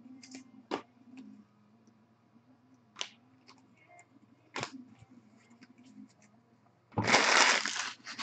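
Baseball cards being handled and shuffled: a few light clicks and taps as the cards are flipped through, then about seven seconds in a loud rustle lasting about a second, followed by a shorter one.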